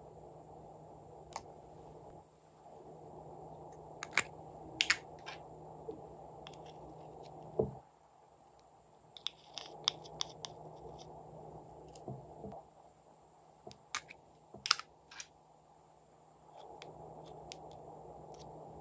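A metal spatula scraping and clicking against small plastic cosmetic pots as their contents are scooped out: scattered sharp clicks and scrapes, loudest around four to five seconds in and again around fifteen seconds in. Underneath is a low background hiss that drops out for several seconds in the middle.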